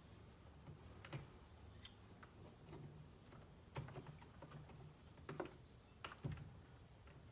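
A handful of faint, irregular clicks and light taps, with quiet room tone between them, from small tools and metal parts being handled while the set screws on the roll cage adapter are backed out.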